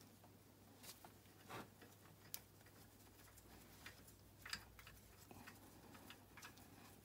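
Near silence with a handful of faint, scattered clicks and taps from handling the carburetor while its mounting bolt to the intake manifold is being undone.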